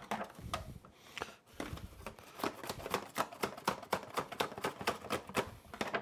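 Metal spoon clicking and scraping against a roasting pan as roast potatoes and vegetables are scooped out and coaxed off the tray: a quick, irregular run of clicks, about four a second, that gets busier after the first second or so.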